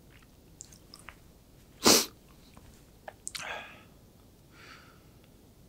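A crying man's sniffles and breaths: one short, sharp sniff about two seconds in, then a longer breathy sniffle a little after three seconds and a faint breath near five seconds.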